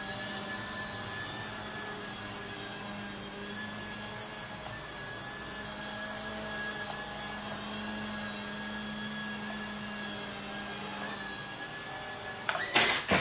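JJRC Dusk micro RC helicopter's electric motors and rotors whining steadily in flight, then a few sharp clattering knocks near the end as the helicopter crashes.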